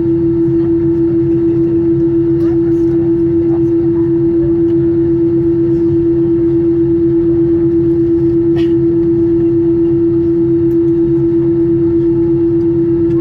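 Airbus A321 cabin while taxiing after landing: a steady engine-idle drone with one strong held tone and a low hum underneath. A few faint cabin clicks are heard over it.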